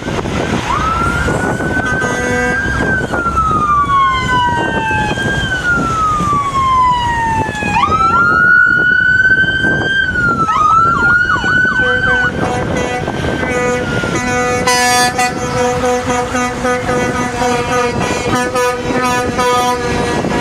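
Several emergency-vehicle sirens wailing together, each rising and falling in pitch. About two-thirds of the way in, truck air horns join with a loud, steady blare.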